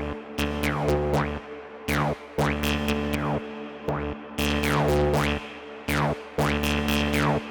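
Electronic music from a VCV Rack software modular synthesizer patch: a loop that repeats about every two seconds, made of sharp percussive hits, a steady bass tone and falling pitch sweeps.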